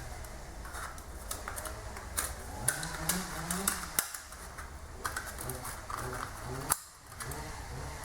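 Irregular light clicks and metallic clinks of hand tools and parts being handled during engine assembly, over a steady low hum.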